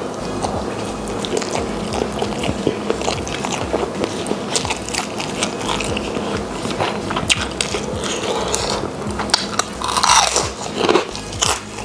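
Close-up chewing and biting of spicy rice with squid and meatball eaten by hand: wet mouth clicks and smacks coming irregularly, with a longer, louder mouth noise about ten seconds in.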